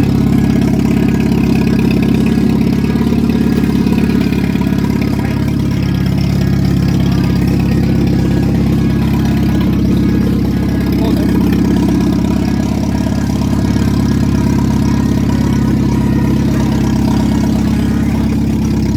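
1989 Jeep Wrangler engine running at a steady idle, which sounds even and healthy.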